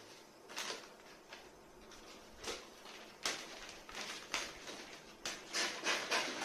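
Plastic courier mailer bag being handled, cut and pulled open: irregular crinkling and rustling of the plastic, with a quick run of sharper crackles in the last second or so.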